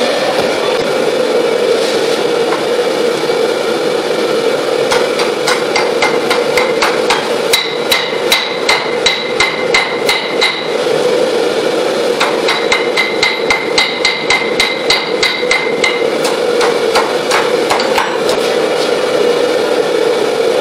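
A hand hammer forging red-hot steel on a steel-block anvil, striking in quick runs of about four blows a second, each with a ringing note. The runs fall in two bursts through the middle, with a few scattered blows before and after, over a steady rushing noise.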